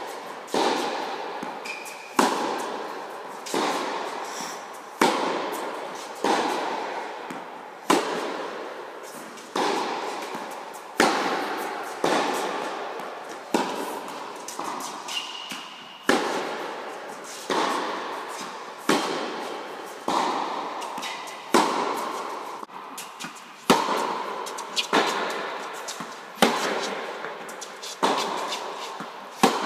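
Tennis ball struck hard by a racket again and again, about once every second and a half, each hit a sharp pop followed by a long echo from the large indoor tennis hall.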